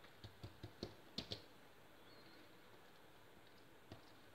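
Faint soft taps and clicks of hands rolling and pressing filled dough against a stone countertop, about half a dozen in quick succession in the first second and a half, then one more near the end, with near silence between.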